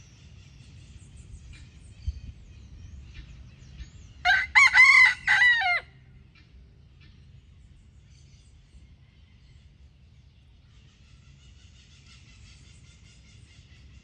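Rooster crowing once, a cock-a-doodle-doo of about a second and a half starting about four seconds in, over faint high chirping and a low rumble.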